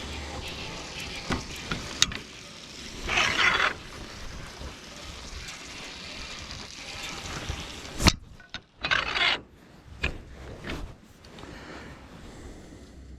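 Scraping and rubbing of wood being handled, with two longer scrapes and a few sharp knocks.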